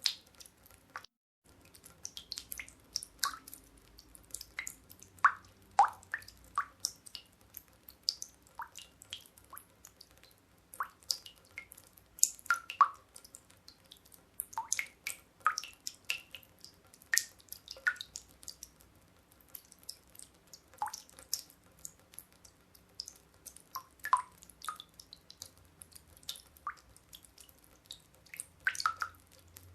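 Meltwater dripping from icicles: an irregular patter of single drops, several a second, some landing with a short pitched plink.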